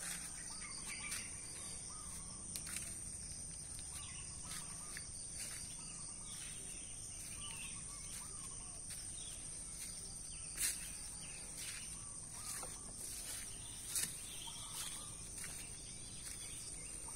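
Outdoor garden ambience: a steady high-pitched insect drone with scattered faint bird chirps. A few short sharp clicks, the two loudest a few seconds apart in the second half.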